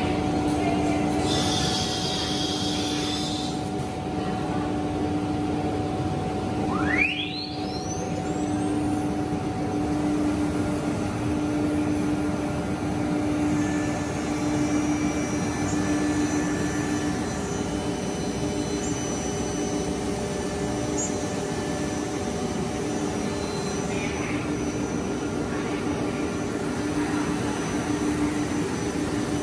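Holztek Pro-R1V9F CNC router machining a wooden door panel: a steady drone of the spindle and dust-extraction airflow. A short hiss comes about a second in. About seven seconds in the sound briefly dips and a whine rises steeply in pitch.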